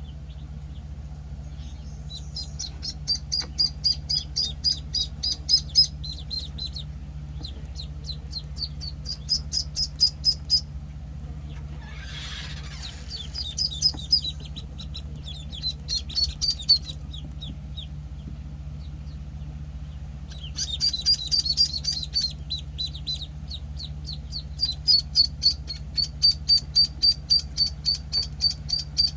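Week-old Penciled Call ducklings peeping: rapid runs of short, high-pitched peeps that come in bursts with short pauses between them.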